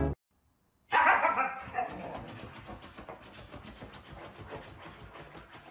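A husky giving a whining, wavering vocalisation about a second in that fades over the next second, followed by quieter rapid panting.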